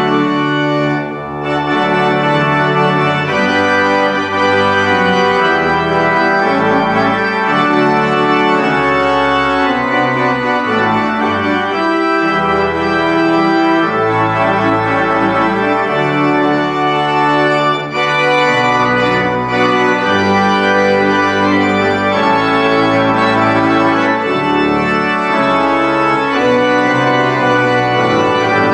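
Pipe organ playing full sustained chords over a moving bass line, with two brief breaks between phrases, about a second in and around eighteen seconds in.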